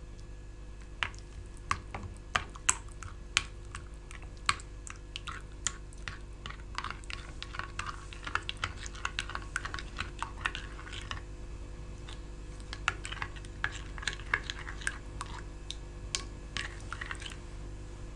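A spoon stirring chutney into thick yogurt in a ceramic bowl. Sharp clicks of the spoon against the bowl come in the first few seconds, then quicker runs of small clicks and wet squelching as the mixture is worked, over a steady low hum.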